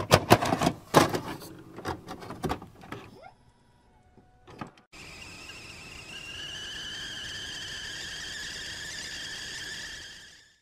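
A kettle whistling: a steady two-toned whistle that rises slightly in pitch, then fades out near the end. Before it, for about three seconds, comes a run of sharp clicks and knocks.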